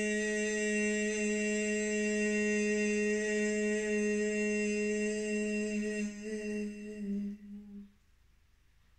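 A voice humming one long, steady held note that wavers and fades just before stopping about eight seconds in.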